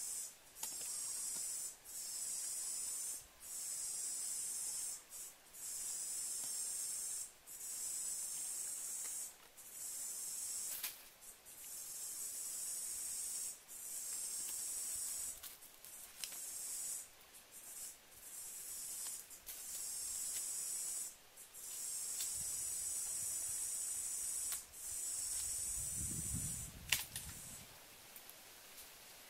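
Insects buzzing in a high-pitched chorus that comes in pulses of one to two seconds with short breaks. Near the end there is a brief low rumble and a sharp click, and then the buzzing stops.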